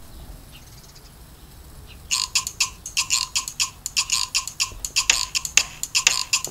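A faint low hum, then from about two seconds in a rapid, uneven series of short clicking pulses.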